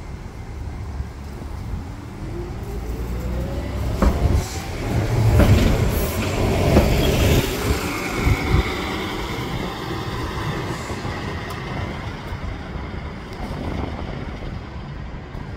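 Articulated New Flyer Xcelsior city bus pulling away and accelerating past, its engine and drivetrain giving a whine that rises in pitch. It is loudest about five to seven seconds in, with a couple of sharp knocks, then fades as the bus drives off.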